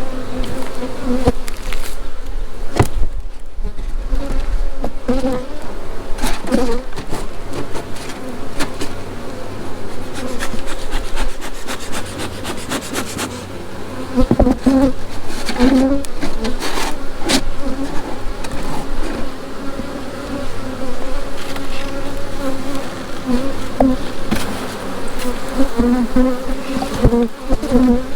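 Swarm of honey bees buzzing loudly around an open hive, a wavering drone that swells and fades, with scattered knocks and clicks throughout.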